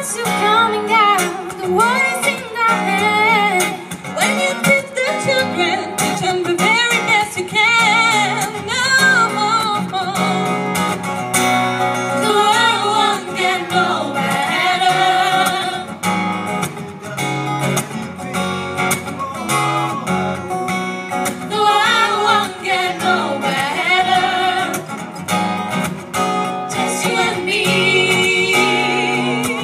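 A group of women singing together into microphones, accompanied by a strummed acoustic guitar.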